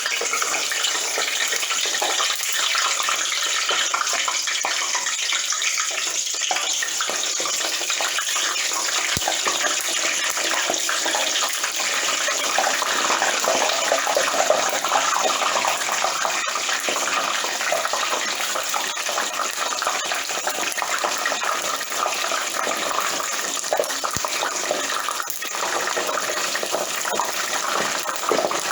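French fries frying in hot grease, a loud, steady sizzling and crackling bubble just after they are dropped into the oil.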